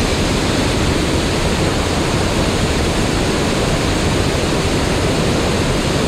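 Mountain stream rushing over rocks and a small cascade: a steady, unbroken rush of water.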